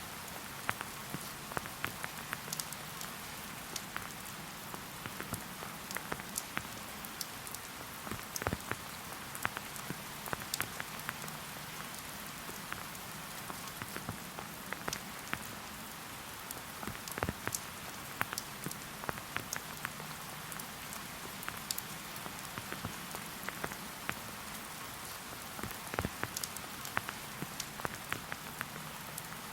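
Steady rain falling, an even hiss with many separate drops clicking sharply at irregular moments.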